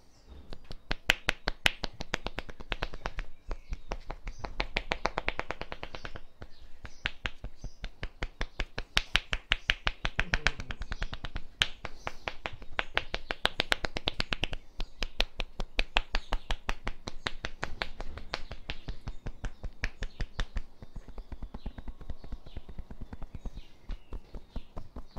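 Rapid, rhythmic percussive strikes of a hand massage: hands chopping and slapping on the body, several sharp claps a second, in runs broken by brief pauses.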